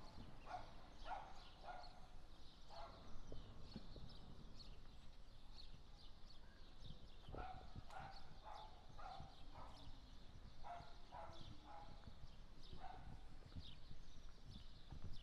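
Faint, short animal calls, repeated irregularly, over a low background rumble.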